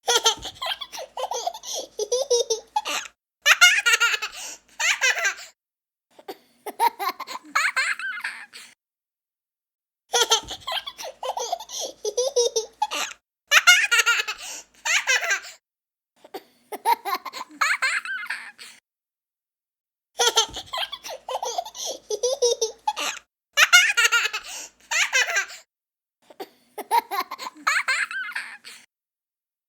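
A young child laughing in bouts of quick, high giggles and belly laughs, broken by short gaps of complete silence. The same run of laughter repeats about every ten seconds, a looped clip.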